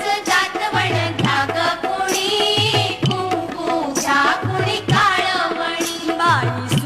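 Background music: an Indian-style song with a singing voice over a percussion beat.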